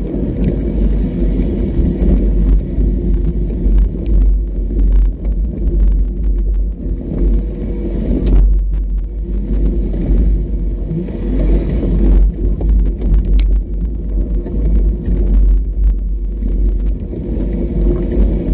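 An off-road vehicle's engine running steadily under a heavy low rumble, with scattered short clicks and knocks throughout.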